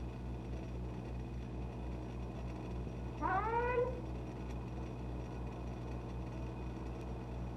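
A woman's voice calls "Tom!" once, about three seconds in, in one long call that rises in pitch, over a steady low hum.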